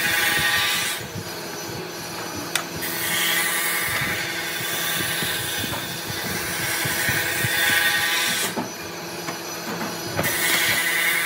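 Wooden slats knocking and rubbing against each other as interlocking slatted pine pieces are handled and fitted together by hand, over a steady background drone of several held tones.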